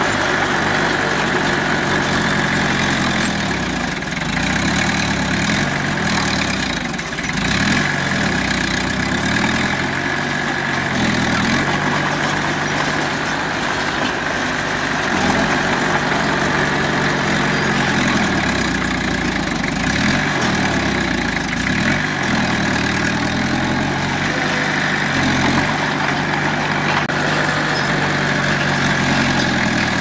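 Diesel engine of an earthmoving machine running under work, its pitch rising and falling every few seconds, with a steady high-pitched whine alongside.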